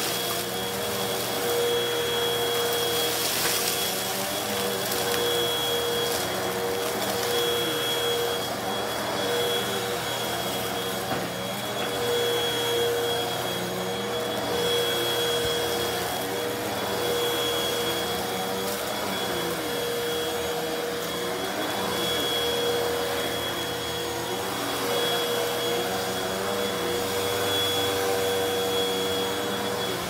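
Hoover upright vacuum cleaner running continuously on carpet. It gives a steady motor whine over a rushing roar, with small, slow rises and falls in pitch as it is pushed back and forth.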